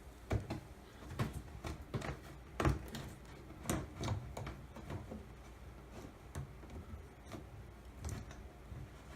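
Irregular light clicks and knocks of tub overflow drain parts being handled and fitted. The loudest come about half a second in and just under three seconds in.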